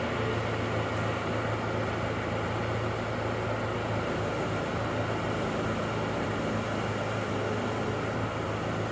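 A motor vehicle's engine running at a steady speed, an even hum with road and wind noise.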